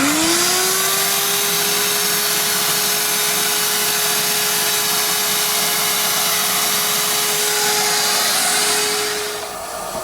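Small shop vac motor switched on and sucking on an air conditioner's condensate drain line, sealed with a bag: it spins up with a rising whine in the first second, then runs steadily. Near the end the whine drops out and the sound gets quieter.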